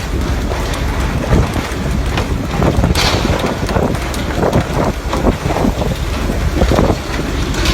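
Wind buffeting the microphone over a steady low rumble, with a sharp rush of noise about three seconds in.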